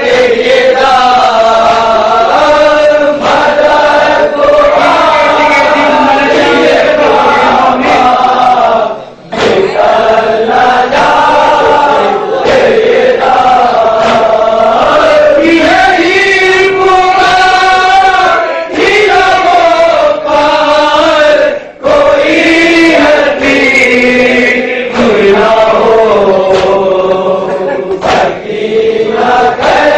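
Men's voices chanting a nauha, an Urdu lament, together in long held melodic lines. Regular sharp beats run under the singing, typical of the chest-beating (matam) that accompanies it.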